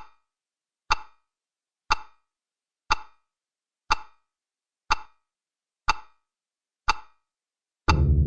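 Clock-like ticking, one sharp tick about every second with silence between. A deep low drone comes in near the end.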